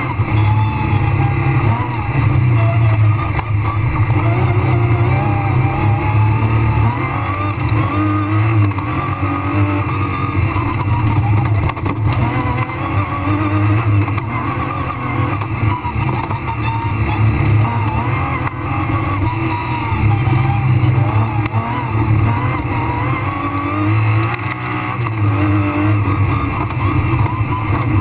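Rally car engine driven hard on a dirt stage, heard from inside the cockpit, its pitch repeatedly rising and falling as the driver accelerates, lifts and changes gear, over steady tyre and road noise.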